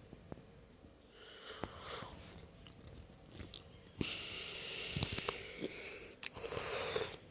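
Quiet close-up handling noise: scattered soft clicks and rustling. It grows louder about four seconds in, with a hiss that stops sharply near the end.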